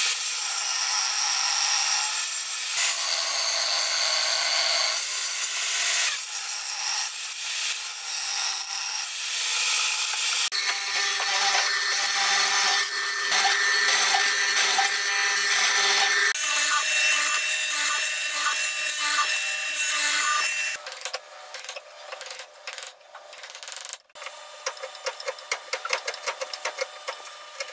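Table saw cutting a tenon in hardwood, a dense steady cutting noise, followed by a mortising machine's chisel boring a mortise. Near the end come irregular sharp knocks as a hand chisel chops and pares the mortise clean.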